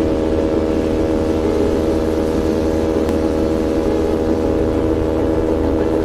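Bullit Hero 250 motorcycle's engine running under way at steady revs, its note holding one pitch over a rush of noise.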